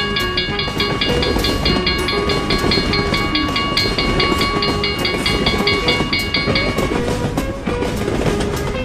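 Railroad crossing warning bell ringing in a fast, even repeat over the rumble and clatter of a passing train. The bell stops about seven seconds in while the train noise carries on.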